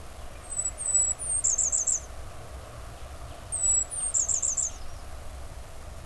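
Blackburnian warbler singing twice: very high, thin songs, each a few slurred notes ending in a quick run of four notes.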